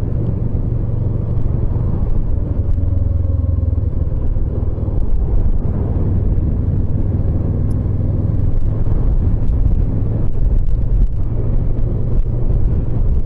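Motorcycle riding along at road speed: the engine runs under a steady low rumble of wind and road noise.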